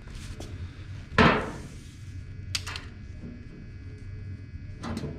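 A sharp knock about a second in, then a couple of small clicks and a brief rustle near the end: hand-handling of tools and materials.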